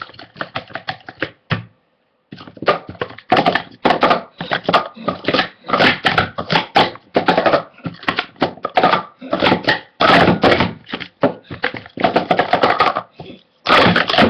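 Plastic Speed Stacks sport-stacking cups clattering as they are rapidly upstacked and downstacked on a stacking mat: a fast, unbroken run of tapping clicks and knocks, with a brief pause about two seconds in.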